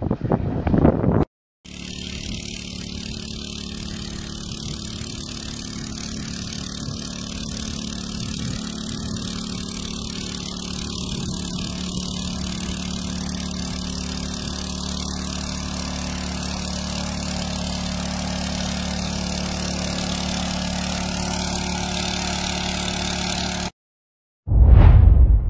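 Steady engine drone with a low hum, getting slowly louder over about twenty seconds. It starts after a brief cut-off near the beginning and stops suddenly, followed by a short, loud low burst near the end.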